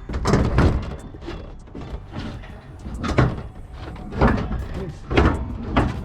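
Treadmill being shifted and positioned by hand, giving a run of irregular knocks and thuds, about six over the few seconds.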